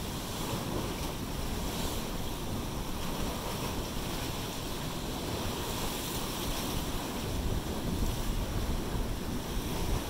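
Pacific Ocean surf washing through a channel among basalt rocks: a steady rush of breaking waves and churning foam.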